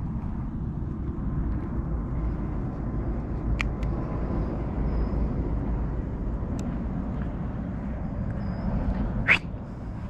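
Wind buffeting the microphone as a steady low rumble, with a few faint clicks and a short rising squeak about nine seconds in.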